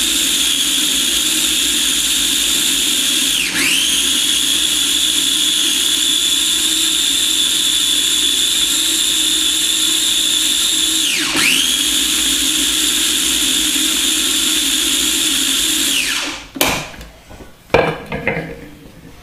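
Countertop food processor motor running at speed with a steady high whine as it blends garlic into aioli. Twice the pitch dips and comes back up. It stops about 16 seconds in, followed by a few plastic clatters as the lid comes off.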